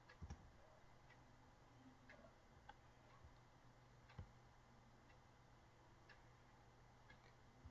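Near silence: room tone with a faint low hum and a few scattered faint clicks, among them a computer mouse click about a third of a second in; the strongest click comes about four seconds in.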